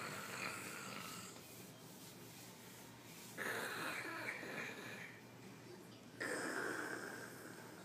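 A toddler pretending to snore: three breathy snores about three seconds apart, each starting suddenly and fading away.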